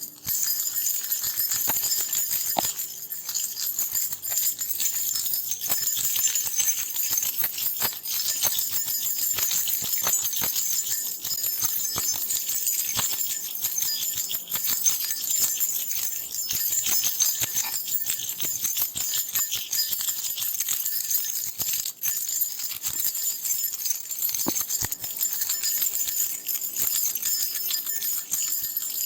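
A bunch of metal keys shaken and jingling in a continuous rattle of bright clinks, with brief pauses about two and a half seconds in and again near the end.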